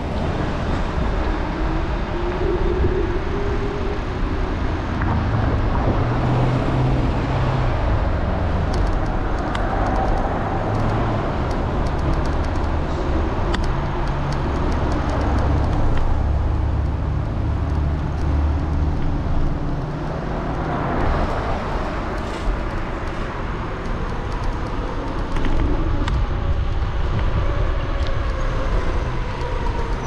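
Street traffic and road noise heard from a moving electric scooter: a steady low rumble, with faint whines that rise and fall in pitch and a few light ticks.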